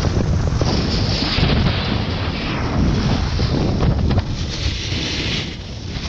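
Wind buffeting the microphone of a snowboarder's camera at speed, with the hiss and scrape of a snowboard riding over packed snow. It eases a little in the last second or two as the rider slows.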